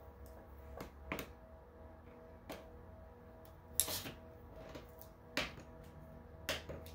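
Quiet ambient background music of steady held tones, with several sharp taps and clicks scattered through, the loudest near the middle.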